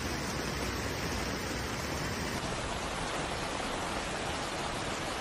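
Steady rushing noise of heavy rain and running floodwater during a flash flood, with no break; its sound changes slightly about two and a half seconds in.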